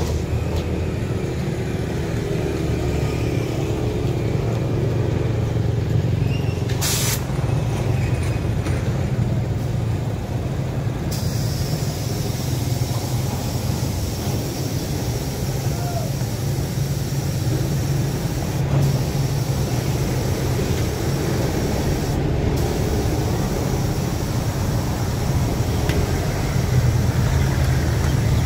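Steady low engine rumble with street traffic going by, and one short sharp noise about seven seconds in.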